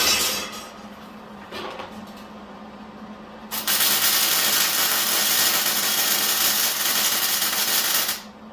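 Miller 175 MIG welder laying a short weld bead on steel: a steady arc that starts about three and a half seconds in, runs for about four and a half seconds and stops sharply. There is a brief burst at the very start and another short one a couple of seconds later.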